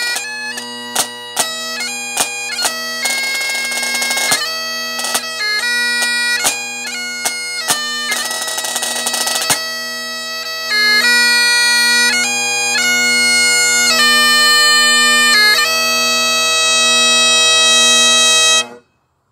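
Great Highland bagpipe playing a tune over its steady drones, with a snare drum adding sharp beats and two short rolls in the first half. The music stops abruptly just before the end.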